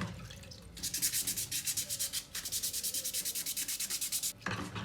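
Wet sandpaper rubbed quickly back and forth over a plastic mouse shell, several hissing strokes a second, with a brief break a little over two seconds in. The strokes stop shortly before the end. This is wet-sanding the surface smooth before spray painting.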